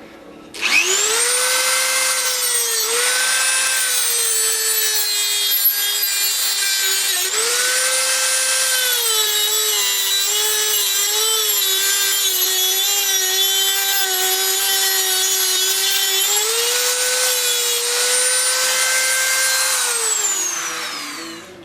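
Dremel rotary tool cutting through the power steering pump's inlet tube: a steady high whine that drops in pitch while the tool is bearing into the metal and rises again as the load comes off. It starts about half a second in and spins down with falling pitch near the end.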